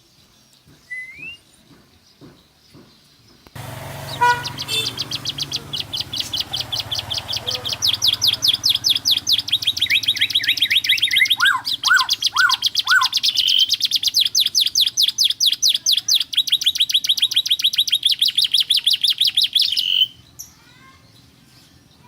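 Canary singing: a few short chirps, then from about four seconds in a long song of rapid, evenly repeated high notes, with a short passage of lower, slower notes partway through, ending suddenly about twenty seconds in.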